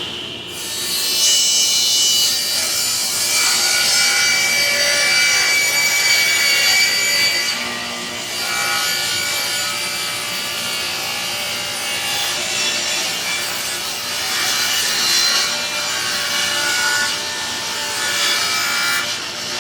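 Power saw ripping scrap plywood: the spinning blade cuts through the wood in a long, continuous cut, easing off briefly about eight seconds in.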